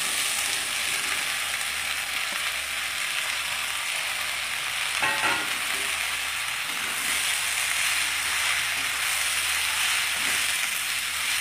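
Bottle gourd pieces and moong dal sizzling in hot oil in a wok as a wooden spatula stirs them: a steady hiss, with a brief clatter of the spatula about five seconds in.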